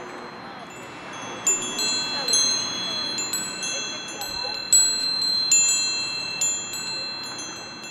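Chimes ringing in irregular, overlapping strikes that start about a second and a half in, each tone ringing on, over a steady low hiss.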